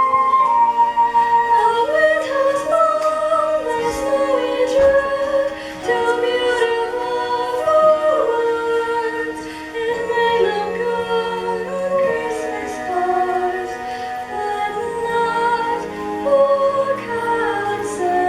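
A song from a stage musical: a sung melody with female voices, held notes moving from pitch to pitch over accompaniment.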